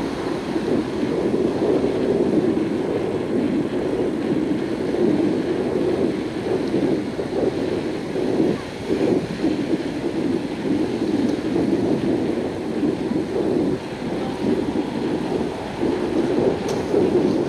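Wind buffeting the microphone of a camera riding on a moving bicycle: a continuous rushing noise that swells and dips, with road and tyre noise under it.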